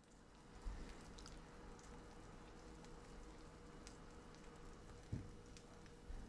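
Faint sizzling and crackling of buttered bread frying on low heat in a non-stick frying pan, with a couple of soft thumps, one just under a second in and one about five seconds in.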